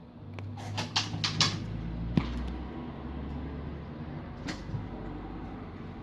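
A plastic UHU 'flinke Flasche' glue squeeze bottle being pressed hard to get the glue out: a few quick plastic crackles and clicks, then a sharp click about two seconds in and another about four and a half seconds in, over a low hum.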